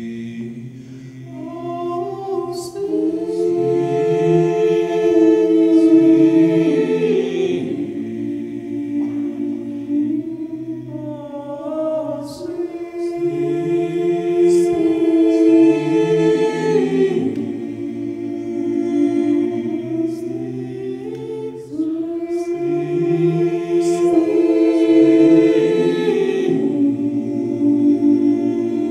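Men's a cappella vocal ensemble of about ten voices singing close harmony into microphones: three long phrases, each swelling to a loud held chord and easing off between.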